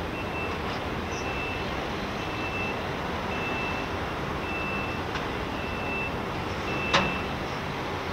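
A vehicle backup alarm beeping, seven high beeps about a second apart, over steady industrial background noise. A single sharp bang about seven seconds in is the loudest sound.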